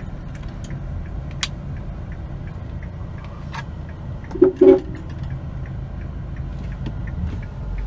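Hyundai Accent diesel engine idling steadily, heard from inside the cabin as a low rumble, with two short beeps about four and a half seconds in.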